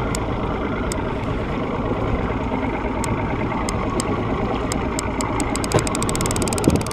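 Outboard motor running steadily while a trolling reel clicks, scattered ticks at first that come faster and faster near the end.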